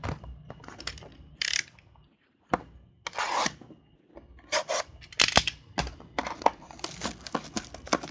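Plastic shrink wrap being torn and peeled off a sealed trading-card box, in irregular crinkling, crackling bursts mixed with sharp clicks and taps of the cardboard box being handled.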